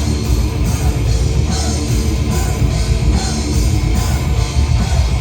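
Live thrash metal band playing loud: guitars, bass and drums in an instrumental stretch, with no vocals.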